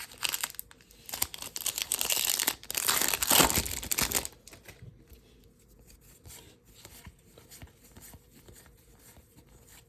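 A baseball card pack's wrapper is torn open and crinkled, loud and crackly for about the first four seconds. Quiet soft ticks follow as the cards are handled.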